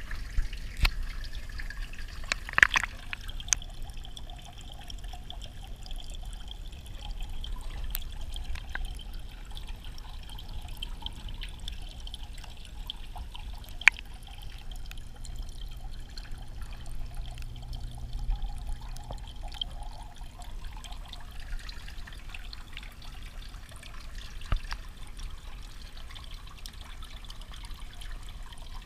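Steady trickle and splash of water pouring into a turtle tank from a filter return, heard with the microphone under the water, with a few sharp clicks, the loudest about three seconds in and near the middle.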